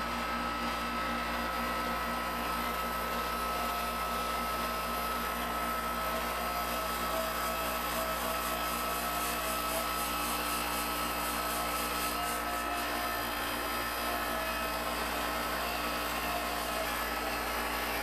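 Outdoor air-conditioner condensing unit running: compressor and condenser fan make a steady hum with a thin whine above it. The unit is running normally, the compressor drawing about 15 amps.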